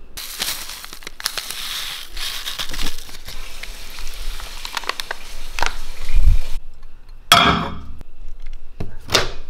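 Oatmeal being made in a ceramic bowl: a long stretch of pouring noise with small clicks as liquid goes over the oats, then two short, loud, sharp sounds about a second and a half apart near the end.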